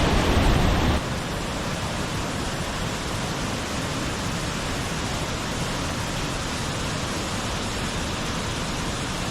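Steady rushing of a large waterfall, Ganoga Falls, running high after heavy rain. The level drops a little about a second in, then holds even.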